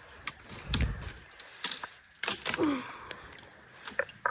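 Footsteps crunching and snapping through dry brush: irregular cracks and crackles, with a dull thump just under a second in and a short grunt in the middle.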